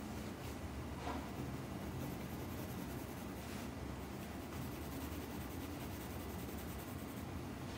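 Black pencil shading on paper: faint strokes over a steady low background hum.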